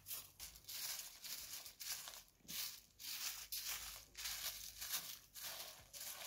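Short straw hand broom sweeping dry dung and straw across hard dirt ground: rapid scratchy swishing strokes, about two a second.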